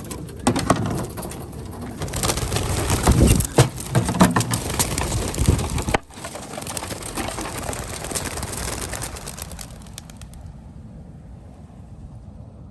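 A flock of young racing pigeons taking off together, a dense clatter of wingbeats, loudest in the first half and fading away after about ten seconds as the birds fly off.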